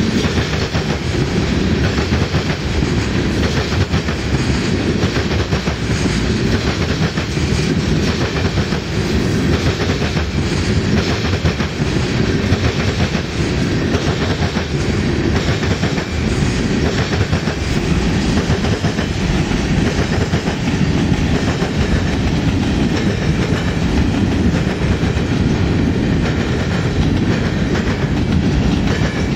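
Freight train of tank cars and boxcars rolling past close by: a steady loud rolling noise of steel wheels on rail, with rapid clicking as the wheels pass over the rail joints.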